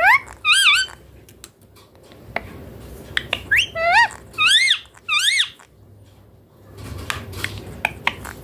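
Indian ringneck parakeet calling: high, rising-and-falling squawks, two near the start and a quick run of about four around the middle, with faint scattered clicks in between.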